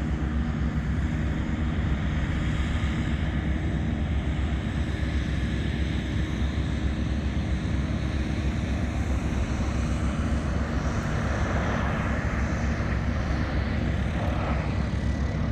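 Boeing 737 MAX's CFM LEAP-1B turbofan engines running, a loud steady roar with a deep rumble underneath. The higher rush swells louder about ten seconds in.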